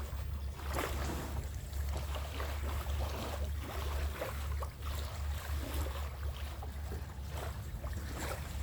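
Small fishing boat on the water: a steady low rumble throughout, with irregular short splashes and knocks.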